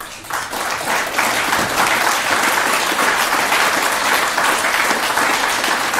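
Audience applauding: a crowd's clapping that swells within the first second and then holds steady.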